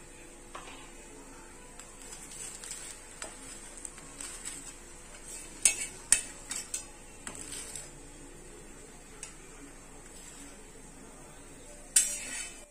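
Bhakri sizzling in oil on a hot iron tawa, with a metal spatula scraping and clinking against the griddle as the flatbread is flipped about six seconds in and pressed again near the end.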